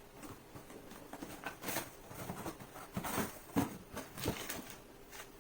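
Filament spool packaging being opened and handled: scattered rustling and crinkling with a few light knocks.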